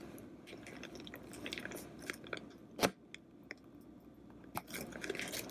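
Disposable plastic piping bag crinkling and crackling as it is squeezed to pipe cream, with scattered small clicks and one sharper click about three seconds in.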